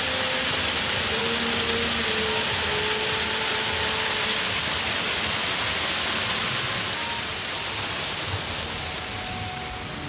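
Small waterfall pouring into a pool: a steady rushing splash that grows fainter over the last few seconds.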